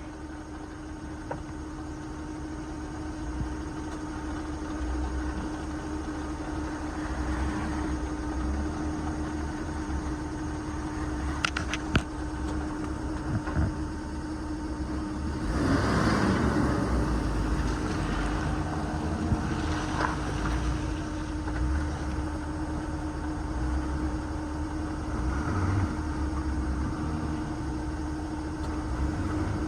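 Off-road vehicle engine running at low speed on a rough trail, over a steady hum. There are a couple of sharp knocks near the middle, then a louder, rougher stretch just after them.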